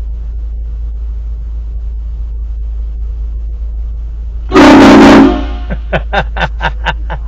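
Aftermarket train horn mounted on a car, giving one short, very loud chord blast of under a second about halfway in, loud enough to distort, over a steady low hum. A quick run of short voice bursts follows.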